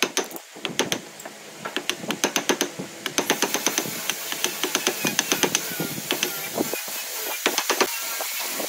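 Wood chisel breaking out the thin slivers of pine left between saw kerfs: a fast run of sharp clicks and cracks as the slivers snap off, thinning out after about five seconds. A steady hiss rises in the background from about three seconds in.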